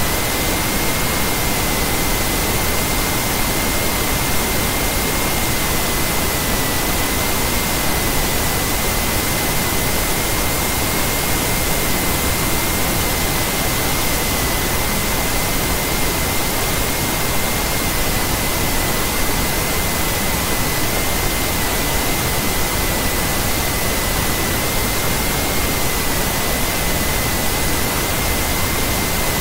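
Steady, loud hiss of electronic recording noise, with a thin, steady high-pitched whine held over it.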